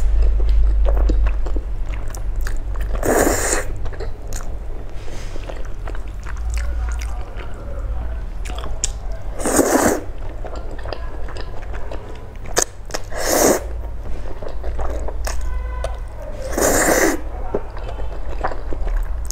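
A person eating black bean sauce noodles: loud slurps at intervals of a few seconds, with chewing between them.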